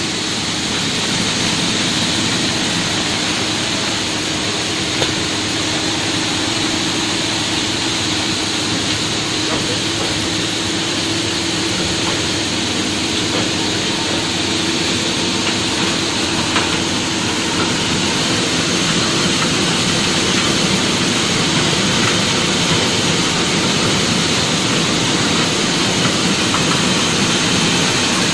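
Dal mill running steadily with pulses feeding through it: a loud, even mechanical noise with a constant hum and a few faint clicks.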